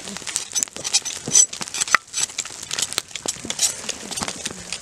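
A gloved hand rubbing and scraping the charred hair off a singed caribou head: a dense, irregular run of scratchy crackles and rustles.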